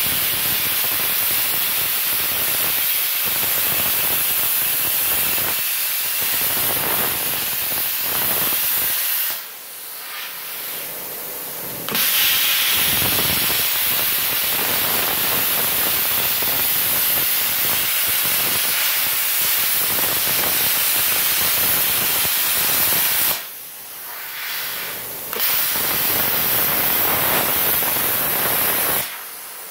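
Plasma cutter's arc and compressed-air jet hissing loudly as the torch cuts 2 mm galvanized steel sheet at about 50 amps. It runs in three long passes, with two short breaks about ten and twenty-four seconds in where it drops to a quieter hiss.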